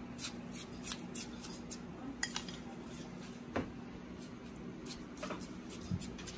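A metal spoon clinking and scraping against a glass parfait glass and a ceramic bowl as crushed ice is spooned in for halo-halo. The taps come irregularly, close together at first and thinning out after about two and a half seconds.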